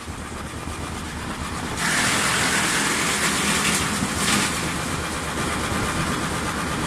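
AGT SSBX42S wood chipper running steadily. A louder rushing noise sets in about two seconds in and eases off again a little after four seconds.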